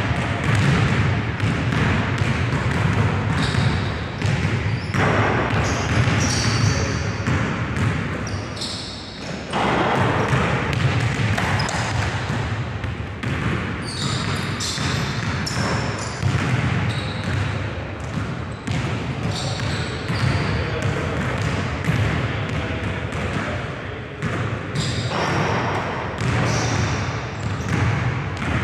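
Basketballs bouncing on a hardwood gym court: repeated short thuds throughout, echoing in a large hall, over a steady background of indistinct voices.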